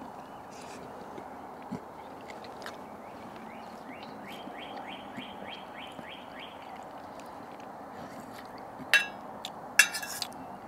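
A metal spoon clinks against a stainless steel bowl twice near the end, the loudest sounds, over a faint steady background hiss. In the middle a bird sings a short trill of about a dozen quick rising notes.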